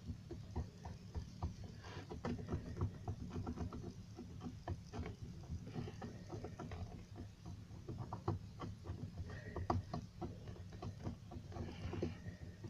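Slime being squished and worked by hand, a steady run of irregular small wet clicks and pops, as marker colour is worked into it.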